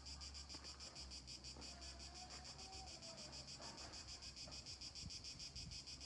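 Faint summer insect chorus: a steady high chirring that pulses evenly several times a second.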